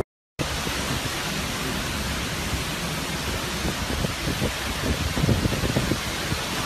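Hurricane-force wind and heavy rain making a steady rushing hiss, with uneven low buffets of gusts coming in during the second half. It cuts in after a brief moment of silence.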